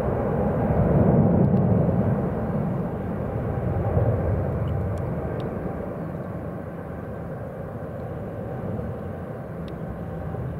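Jet engines of a Boeing 777 on takeoff, heard as a steady rumble that is loudest early on and then slowly fades as the aircraft climbs away.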